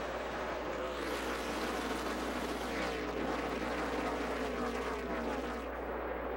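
A pack of NASCAR Cup stock cars at full throttle, their V8 engines running together in a dense wall of sound. From about a second in, cars pass close by one after another, each engine's pitch dropping as it goes past.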